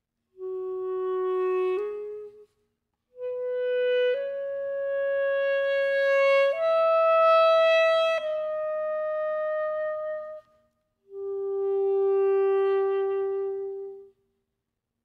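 Solo clarinet playing slow, sustained notes in three phrases separated by short silences: two held notes, then a longer phrase of held notes stepping upward and easing back down, then one long low held note.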